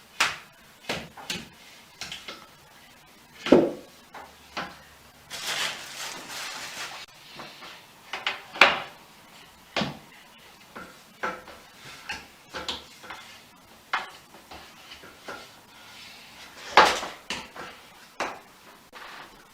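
Irregular knocks and clatter of bed-frame parts being fitted together, a few of them sharp and loud, with a scraping slide about five to seven seconds in.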